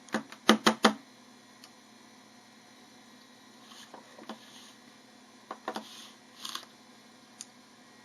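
Clicking from working a vintage Macintosh's mouse and keyboard: a quick run of four sharp clicks within the first second, then scattered fainter clicks and a couple of short rustles.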